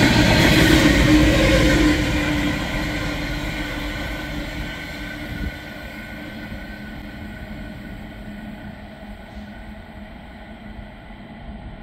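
Empty Aurizon coal train passing, its sound fading steadily from about two seconds in as it moves away. Several steady tones run over the rumble of the wagons.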